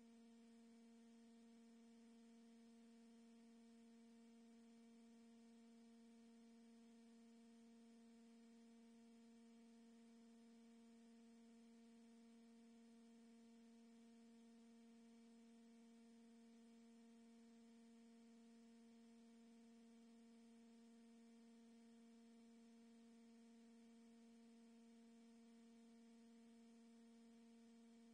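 Near silence with a faint, steady electrical hum: one low tone with evenly spaced overtones.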